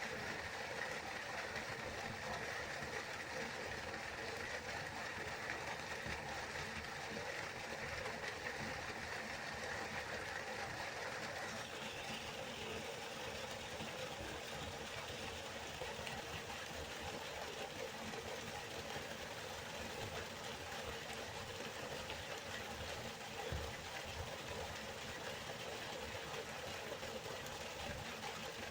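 River water flowing, a steady rushing sound; about a third of the way in its tone shifts slightly higher and hissier.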